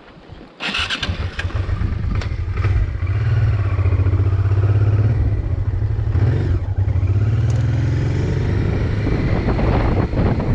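Honda motorcycle engine starting with a sudden burst about a second in, then running and revving under load as the bike is pulled out of soft, sunken ground.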